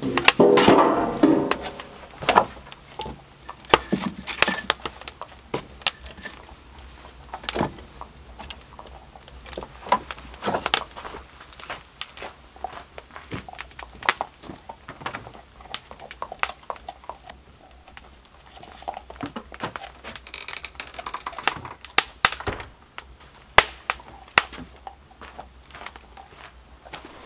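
A sheet-metal oven door scraping and clattering against a clay earthen oven at the start, then scattered sharp clicks and knocks: a wood fire crackling, and later footsteps and knocks on wooden porch boards.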